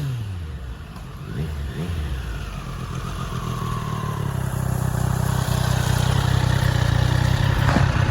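Triumph Street Triple 765 RS inline three-cylinder engine and exhaust while the bike is ridden. The pitch drops at the start, as in a gear change, then the revs pick up in short pulls and the engine grows steadily louder through the rest.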